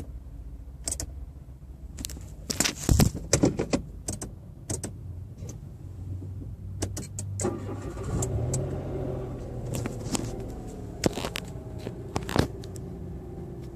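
2013 Mitsubishi Mirage being started: a loud cluster of clicks and rattles, then about halfway the engine catches, its speed rises briefly and settles to a steady run, with a few sharp clicks near the end. This is the start-up noise that the owner is asking about.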